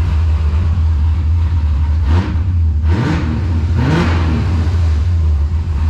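Mazda Miata four-cylinder engine running at idle on its new standalone Holley ECU wiring harness, revved up twice in the middle and then settling back to a steady idle.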